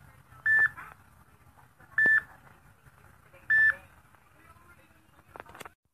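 Short electronic beep repeating three times at an even pace, about one and a half seconds apart, each a single steady high tone, with a few faint clicks near the end.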